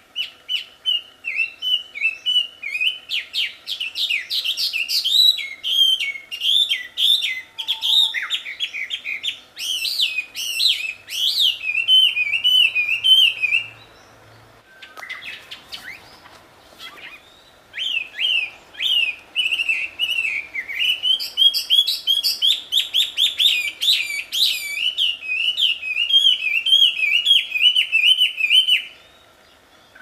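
Chinese hwamei (wambi) singing loudly: a rapid, varied stream of rich whistled phrases in two long bouts, with a pause of a few seconds near the middle.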